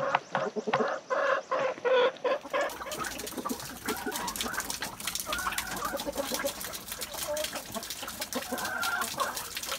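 Hens clucking close by. About two and a half seconds in the sound changes to quieter clucking over a dense patter of small clicks.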